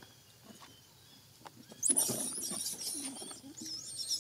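High-pitched, wavering chirping calls, loud and close, starting about two seconds in and going on in a run of squeaks; before them, a few faint clicks.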